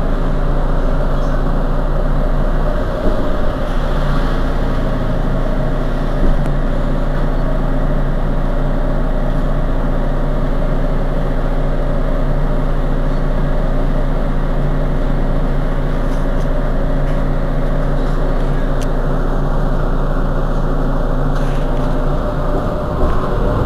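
Mercedes-Benz Citaro G C2 articulated bus idling steadily while standing still, its rear-mounted engine running at an even, unchanging pitch.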